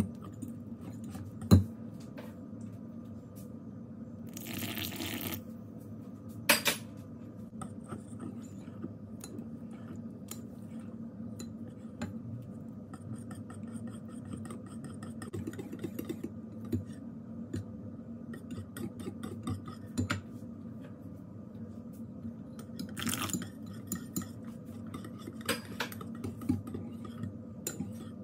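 Wire whisk beating thick pancake batter in a ceramic bowl: wet stirring with the metal tines ticking and scraping against the bowl, and a few sharper clinks.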